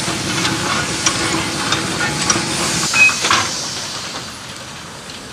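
Lancashire & Yorkshire Railway 'Pug' 0-4-0 saddle-tank steam locomotive moving slowly with a wagon: steady steam hiss with scattered light clicks and clanks, and a brief high squeak about three seconds in. After that the hiss carries on quieter and steadier.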